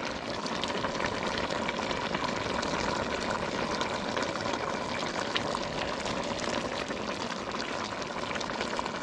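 Pinakbet stew simmering in a wok: a steady bubbling with many small pops, over a faint steady hum.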